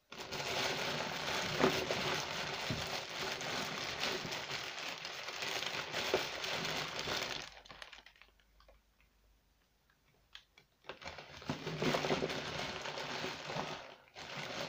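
Crinkly material, such as packaging, being rustled and crumpled by hand. It comes in two spells: one from the start lasting about seven seconds, then a shorter one of about three seconds near the end.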